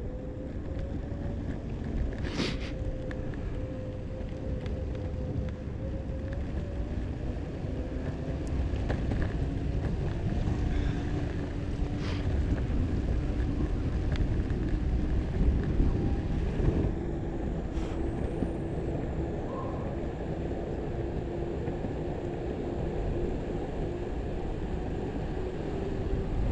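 Electric skateboard riding along: a thin motor whine that drifts slowly in pitch with speed, over a steady low rumble of the wheels on the road, with a few sharp clicks.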